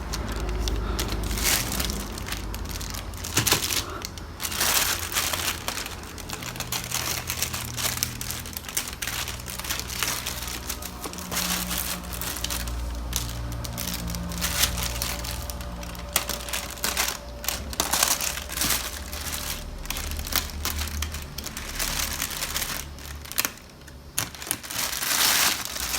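Plastic packaging crinkling and rustling as it is handled and pulled open by hand, with irregular crackles and small clicks throughout.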